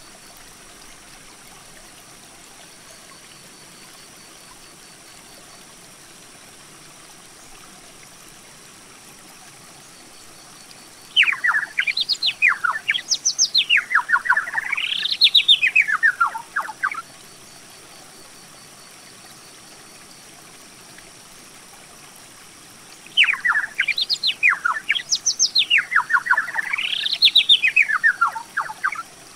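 A songbird sings two long, rapid, trilled songs, each about six seconds long, with runs of notes sweeping up and down. The first starts about eleven seconds in and the second about twenty-three seconds in, over a faint steady hiss.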